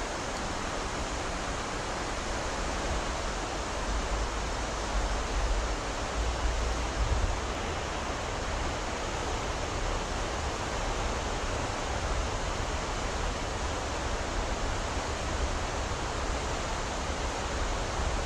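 Steady rush of river current flowing past the bank, with a low rumble that swells a few seconds in.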